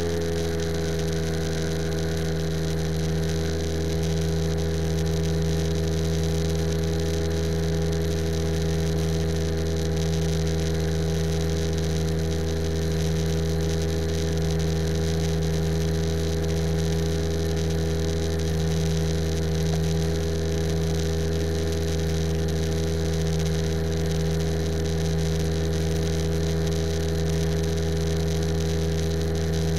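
Propeller aircraft engine running steadily at a constant throttle setting, with a steady drone and rushing air. Its pitch settles slightly lower right at the start, then holds even throughout.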